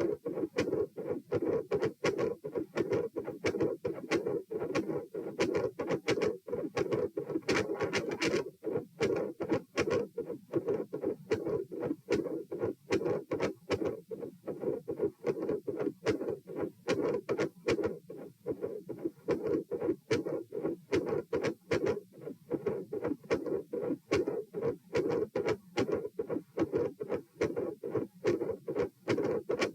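Heartbeat picked up at the chest: a continuous run of close-spaced lub-dub beats. It is recorded during repeated dry swallowing, which the recordist suspects speeds up the heart rate and brings on premature atrial contractions.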